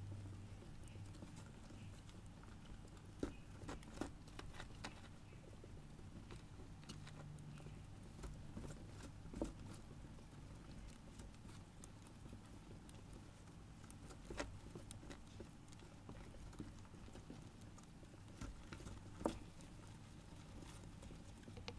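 Faint rustling of wood-shaving bedding as Syrian hamsters move and root about, with a handful of sharp light taps spread through.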